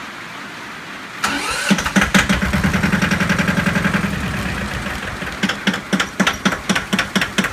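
Yanmar-built 1982 compact diesel tractor engine being started warm: the starter turns it over briefly about a second in, it catches almost at once and runs fast, then drops back to a lower, evenly knocking diesel idle as the hand throttle is pulled back about four seconds in.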